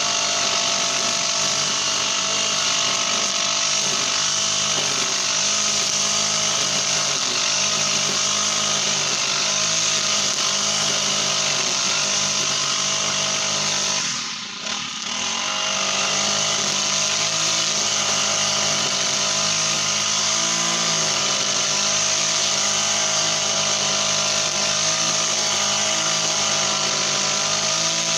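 Brush cutter's Honda GX35 four-stroke engine running steadily at high speed. About halfway through it eases off briefly, then picks back up.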